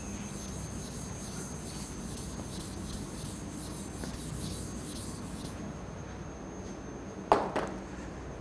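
Chalkboard duster wiping a blackboard in quick scraping strokes, which stop a little past halfway. A single sharp knock follows near the end.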